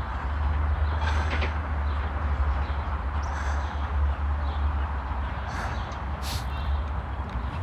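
Outdoor city ambience: a steady low rumble, with four short high-pitched sounds spread through it.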